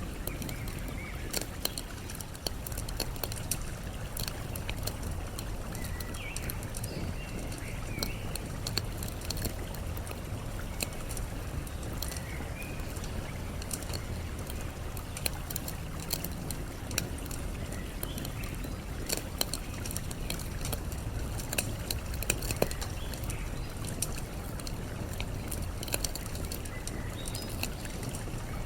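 Campfire crackling with scattered sharp pops, over a steady low rush of flowing water. Short bird chirps come and go now and then.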